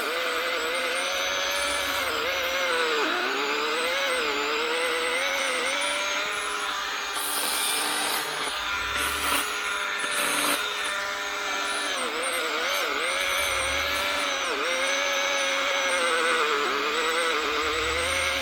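Electric saw cutting through a downed spruce log: a steady motor whine that dips in pitch again and again as it bogs down in the wood.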